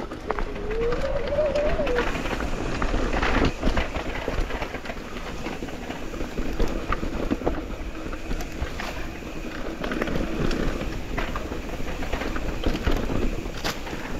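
Mountain e-bike riding over a rough trail: a steady rumble of tyres on dirt with frequent clicks and knocks from the bike rattling over bumps. A short whine rises and falls in pitch about a second in.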